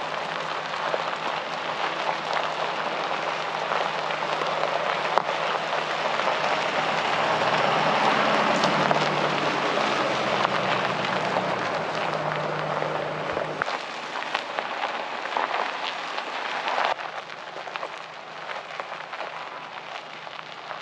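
Heavy rain: a steady hiss of falling rain with a dense patter of drops, easing somewhat near the end.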